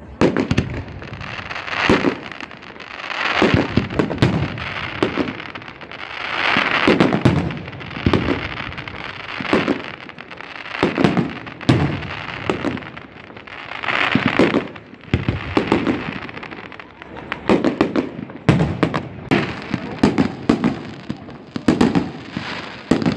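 Aerial firework shells bursting one after another in sharp, echoing bangs, bunched several to a second at the busiest moments, over a steady hiss between the bangs.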